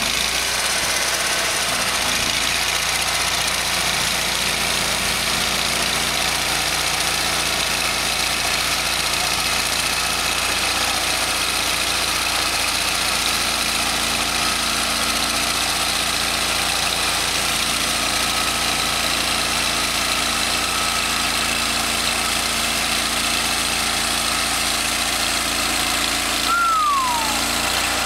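Portable sawmill's engine running steadily.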